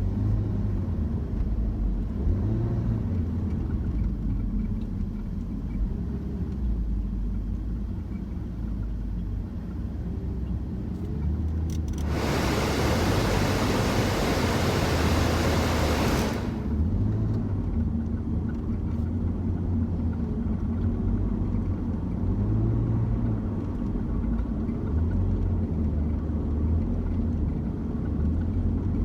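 Inside a BMW Z4's cabin on the move: steady low road and engine rumble, with an intermittent chirping from the dashboard whose cause is unknown; it is not the blower fan. About twelve seconds in, a loud hiss lasts about four seconds, then cuts off.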